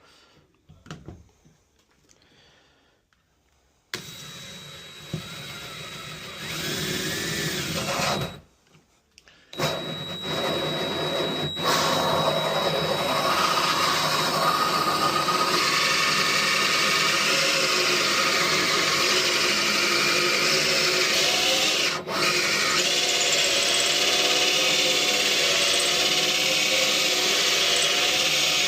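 Power drill boring the deadbolt hole through a wooden door, the motor's pitch shifting as it bites into the wood. It starts about four seconds in, stops briefly, then runs on steadily with one short break near the end.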